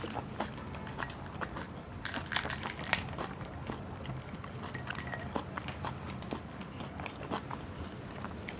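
Chewing and biting crunchy deep-fried chilli fritters (mirchi pakoda), a run of small sharp crunches with a denser cluster about two seconds in.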